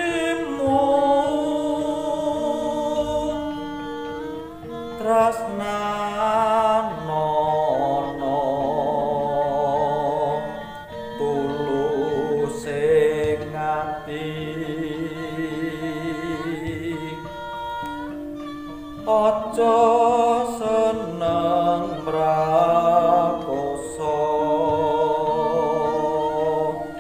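A male voice sings Javanese tembang macapat in the Dhandhanggula form, in laras pelog pathet nem, with a slow, wavering and richly ornamented melody. Steady held instrumental notes move stepwise beneath the voice.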